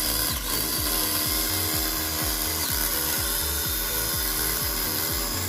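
Background music with a steady, fast electronic beat and a bass line.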